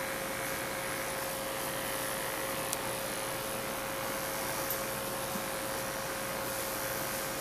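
Electric pet clippers running steadily as they shave a patch of fur on a dog's neck, a constant motor hum with one clear steady tone.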